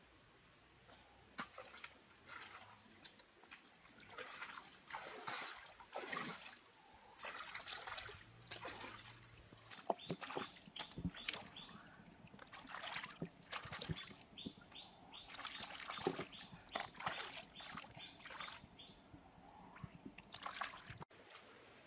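Hands splashing and sloshing in shallow, muddy stream water in irregular bursts while gathering snails from the water's edge.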